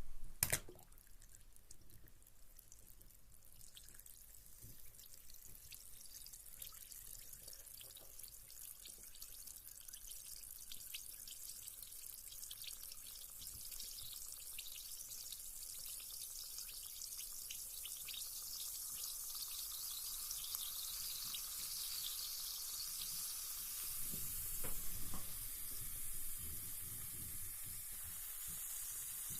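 Carbonated bath bomb dropping into bath water with a splash, then fizzing: a hiss of tiny crackling bubbles that grows steadily louder. Water sloshes briefly near the end.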